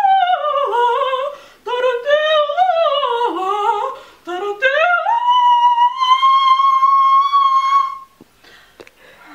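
A woman singing unaccompanied into a microphone in a high voice, in three phrases. The last phrase rises to a long held high note that ends about eight seconds in.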